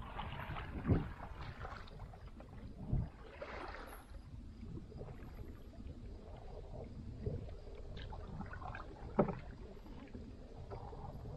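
Canoe being paddled: paddle strokes swishing through the water over a low steady hiss, with a few sharp thumps, about a second in, around three seconds and near the end.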